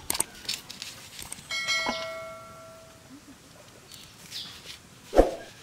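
Subscribe-button sound effect: a few quick mouse clicks, then a bell chime that rings about a second in and dies away over about a second. Near the end comes a single sharp crack, the loudest sound here, as a dragon fruit is cut on a boti blade.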